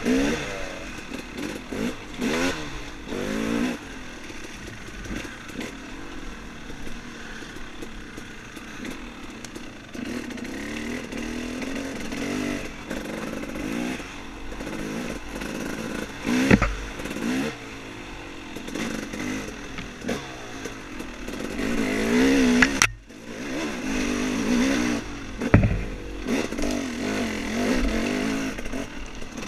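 Off-road dirt bike engine revving up and dropping back over and over as it is ridden along a trail, with a few sharp knocks and clatter from the bike over rough ground.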